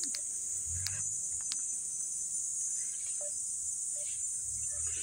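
Steady, high-pitched insect chorus drones without a break from the surrounding trees.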